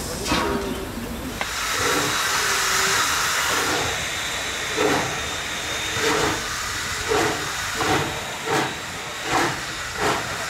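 Steam locomotive hissing steam. About four seconds in it sets off with exhaust chuffs that come quicker as it gathers speed, each blast hissing with steam from the open cylinder drain cocks.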